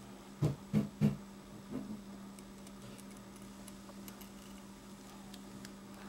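Handling noises from working with paper and tape on a tabletop: three quick soft knocks about half a second in, a fainter one a moment later, over a steady low hum.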